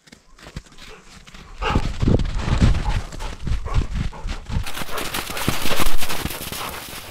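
Dogs' paws thudding on a snowy trail at a run, heard from a camera worn on a dog's back. The footfalls start about a second and a half in, and a rushing noise joins them in the second half.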